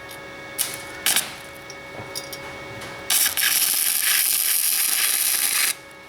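Flux-core MIG welder arcing on a steel exhaust pipe: two brief arc strikes, then a steady crackling bead for about two and a half seconds that cuts off suddenly.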